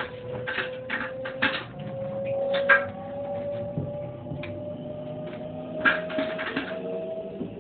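Electric train's traction motors whining in one tone that rises slowly and steadily in pitch as the train accelerates away from a stop, heard from inside the car. Irregular short clatters sound over the whine.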